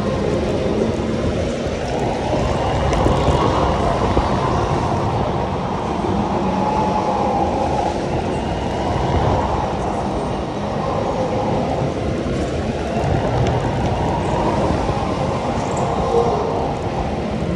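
Go-kart running at speed around the track, heard from the driver's seat: a steady, loud rumble of the drive and tyres. A faint whine rises and falls a few times through the corners.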